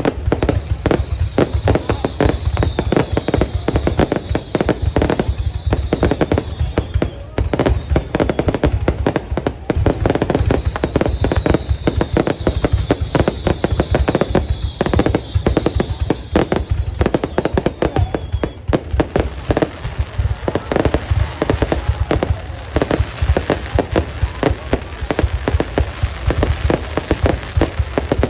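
Aerial fireworks display going off continuously: a dense run of bangs and crackles with no pause. Twice a high whistle falls slowly in pitch over several seconds.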